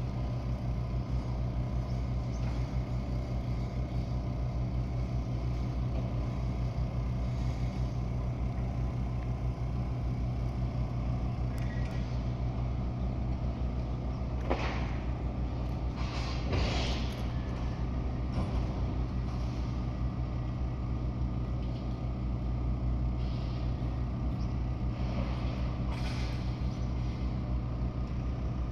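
Steady low engine drone, like a motor vehicle running nearby, with a few brief hisses about halfway through and again near the end.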